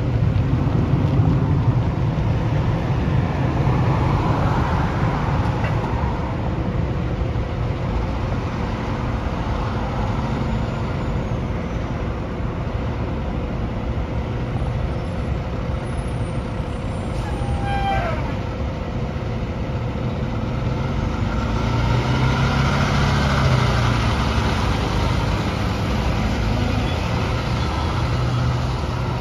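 Heavy diesel engine of a fire department tower ladder truck running as the truck pulls out and drives off. The engine note rises as it accelerates about three-quarters of the way through.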